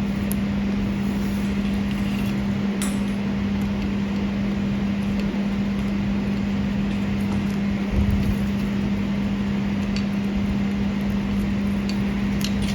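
A steady low machine hum runs throughout, with a few faint clicks and one dull thump about eight seconds in as the wire connection is handled.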